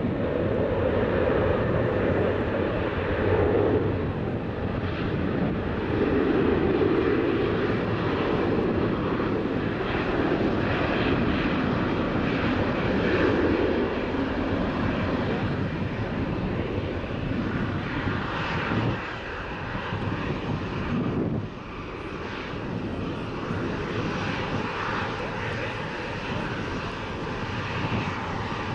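Twin jet engines of an Airbus A320 airliner on its landing roll: a loud, swelling roar, typical of reverse thrust, for the first part, then the engine noise falls away in steps at about nineteen and twenty-one seconds as the aircraft slows.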